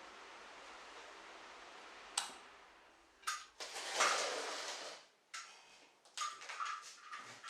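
Hard objects being handled: a sharp click about two seconds in, a longer scraping noise around four seconds, then several quick clatters and knocks near the end, over a faint steady hiss.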